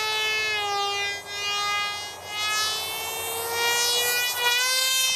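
Electric motor and propeller of a homemade foam RC microjet plane in flight: a steady whine that drops in pitch at the start and climbs slowly toward the end. The sound fades briefly twice, about one and two seconds in.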